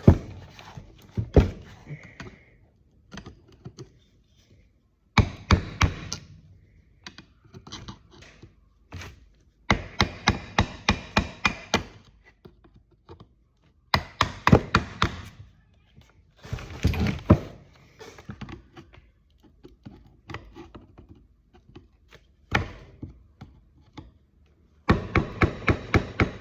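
Runs of quick, sharp strikes as a replacement kingpin is driven into the spindle of a 1954 Bel Air's front suspension. The strikes come in short bursts of several blows a second, with pauses in between.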